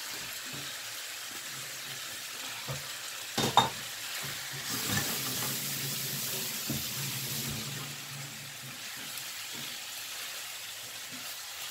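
Chicken wings sizzling in a frying pan of tomato sauce while a spatula stirs and turns them, with one sharp knock about three and a half seconds in.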